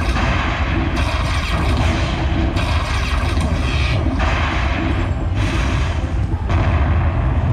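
Lightning Buffalo Link slot machine's bonus payout sounds: a thunder-crash effect about every second and a half as lightning strikes each buffalo symbol and its value is added to the win, over a deep steady rumble.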